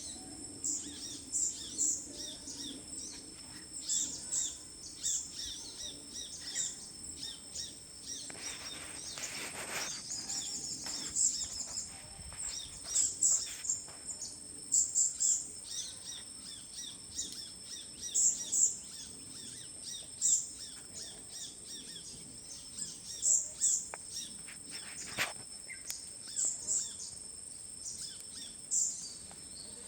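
Many small birds chirping in short, sharp, high calls, repeated again and again, over a steady high-pitched insect drone. A brief rustling noise comes about a third of the way in.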